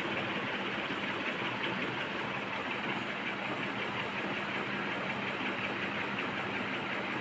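A motor-driven machine running steadily, an even whirring noise with a low hum underneath.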